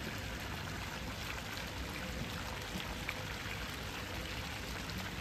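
Water splashing and trickling steadily from a tiered stone garden fountain.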